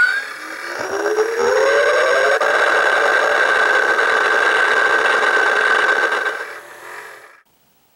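Star Trek Borg Bank's electronic warp-out sound effect: an engine-like tone rising in pitch that settles into a steady hum with a high whistle. It fades after about six seconds and cuts off before the end.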